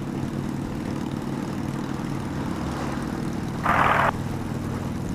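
Honda Gold Wing's flat-six engine running steadily at highway cruising speed, with road and wind noise. About three and a half seconds in comes a brief burst of radio static that starts and stops abruptly.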